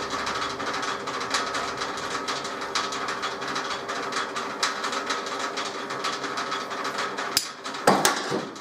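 Metal-turning lathe running with a steady gear hum while facing a part to length, with a stream of irregular ticks from the cut. A couple of sharper knocks come near the end.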